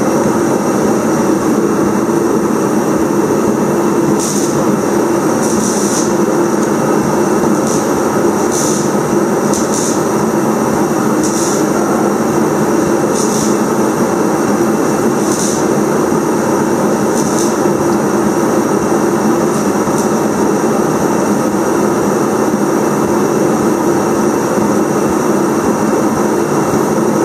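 A steady, loud mechanical drone of machinery running in the shop. Brief high hissy rustles come and go over it now and then.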